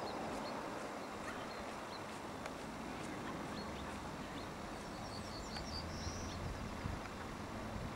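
Faint outdoor field ambience, a steady hiss, with a short run of high bird chirps about five to six seconds in.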